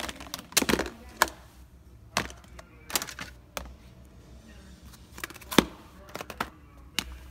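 Plastic containers and lids knocking and clacking together as they are picked up and handled: about ten sharp knocks at irregular intervals, the loudest about five and a half seconds in.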